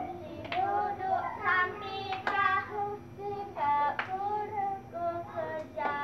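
Young girls singing a hand-clapping game song together, with sharp claps of their hands between the sung notes.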